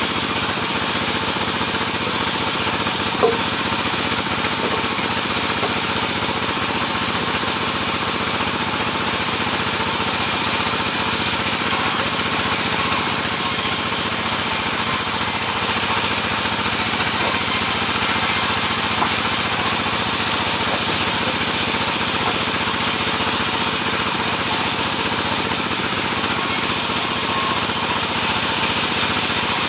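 Sawmill running steadily while sawing sengon wood, a continuous dense mechanical noise, with one brief knock about three seconds in.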